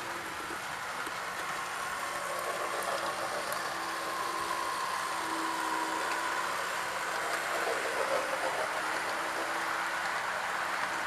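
Märklin model diesel locomotive with a three-pole motor running along the track with its coaches: a steady motor whine over the rattle of the wheels on the rails, getting a little louder in the middle as it passes close by.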